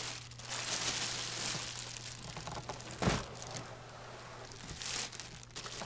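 Large clear plastic bag crinkling and rustling as it is pulled to slide a printer out of a cardboard box, with a dull thump about three seconds in.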